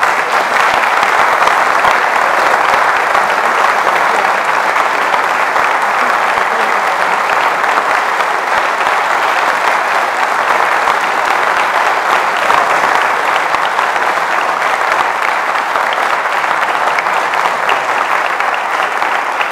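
Audience applauding steadily, many hands clapping together in a dense, even patter.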